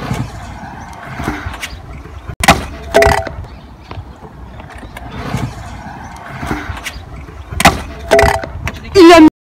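Freestyle scooter wheels rolling on concrete, broken twice by a pair of sharp metallic clanks about half a second apart, each clank ringing briefly as the scooter lands or strikes the concrete. Near the end a loud falling tone cuts off abruptly.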